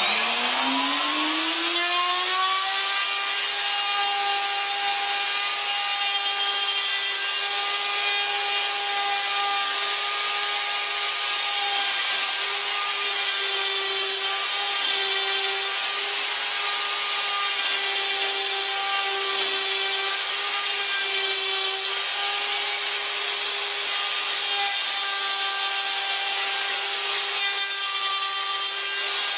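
Electric wood router spinning up over the first two seconds to a steady high whine, then running under load as its bit cuts a triple tenon into the end of a wooden workpiece on a pantorouter. The pitch wavers slightly as the bit bites into the wood.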